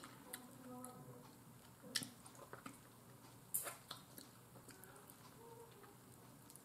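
Quiet chewing and mouth sounds of a person eating baked chicken by hand, with a few short sharp clicks, the clearest about two seconds in and another about three and a half seconds in.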